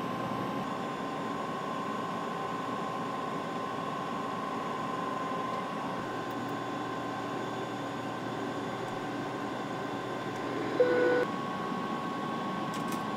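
Steady airliner flight-deck noise, an even hum with a faint high steady tone. About eleven seconds in, a single short electronic beep sounds.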